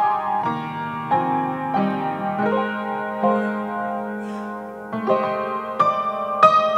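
Solo grand piano playing a slow passage of sustained chords with a melody on top, notes struck about every half second. It softens in the middle and grows louder again about five seconds in.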